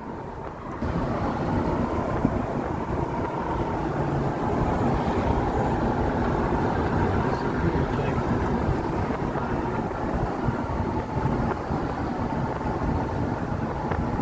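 Steady road and engine noise heard inside a moving van. It jumps up in level just under a second in, then holds even.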